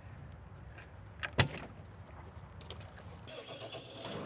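Tractor cab door latch and door clacking sharply once, about a second and a half in, with lighter rattles of the handle around it. Near the end the background changes to a steady hum.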